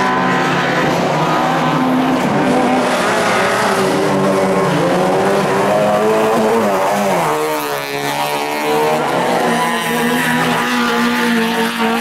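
Toyota Corolla rallycross car's engine running hard at high revs, its pitch wavering with the throttle. About seven seconds in the pitch dips and then climbs back up.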